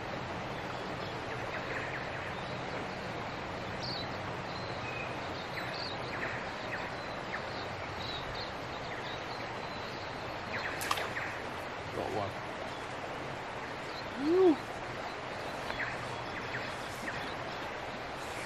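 Steady rush of shallow river water, with scattered bird chirps. About fourteen seconds in, one short low voice-like hum rises and falls; it is the loudest moment.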